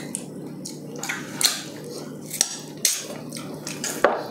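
Close-up eating sounds of soft braised pork leg being chewed: wet smacks and clicks of mouths and fingers at irregular intervals, a sharper one near the end, over a steady low hum.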